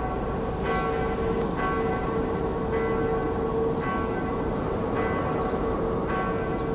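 Church bells ringing in a tower, a stroke about once a second with a long ringing tone, over a steady low rushing noise.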